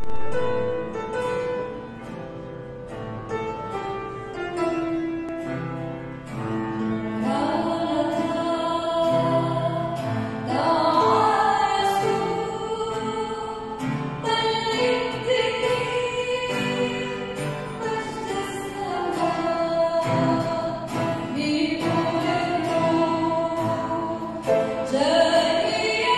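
A woman singing an Arabic Christmas hymn with grand piano and acoustic guitar accompaniment. The piano and guitar play alone for about the first seven seconds, then her voice comes in with a wavering vibrato on held notes.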